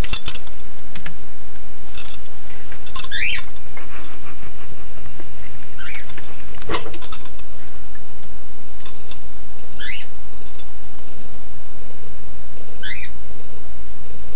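Short, high chirps rising in pitch, one every three or four seconds, over a steady low hum, with a single sharp click about seven seconds in.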